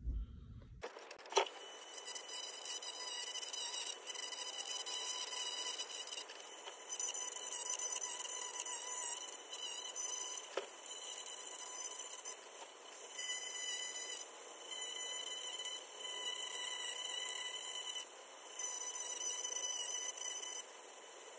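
Dremel rotary tool running with a steady high whine while its bit grinds lightly on a plastic model car body, smoothing out melted creases. The grinding comes in passes of one to two seconds with short breaks between, after a sharp click about a second in.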